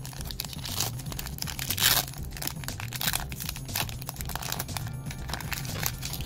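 Foil wrapper of a Pokémon TCG booster pack being torn open and crinkled by hand, with one loud rip about two seconds in.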